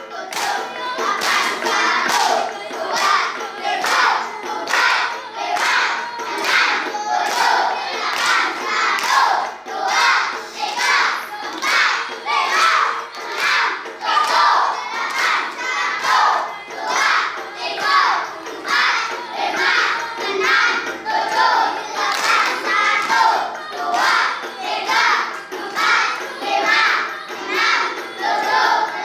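A group of children performing the Saman dance: unison singing with sharp, steady hand claps and slaps on the body in a quick rhythm.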